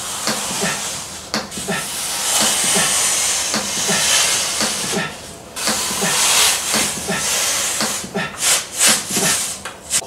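Masking tape being pulled off the roll in long strips and pressed onto a window pane, making a hissing rip. There are two long pulls, then several short tearing rips near the end.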